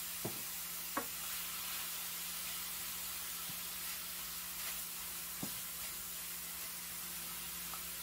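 Ground meat and chopped onion sizzling in a stainless-steel skillet as they are stirred with a wooden spoon. The spoon knocks against the pan a few times, sharpest about a second in.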